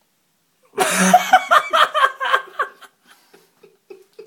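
A man laughing: a quick run of ha-ha pulses starting about a second in, dying away after about two seconds into a few faint breathy chuckles.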